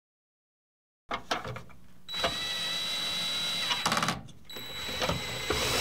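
Cordless drill/driver driving screws into the plastic side plate of a trolling motor's control housing. After a few clicks about a second in, the motor runs steadily with a thin high whine for about two seconds, stops briefly, then runs again.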